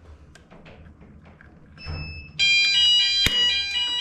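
Fire alarm sounding for a weekly test: after a short beep, it starts suddenly about two and a half seconds in as a loud, steady ringing of several high tones. A sharp click cuts across it about a second later.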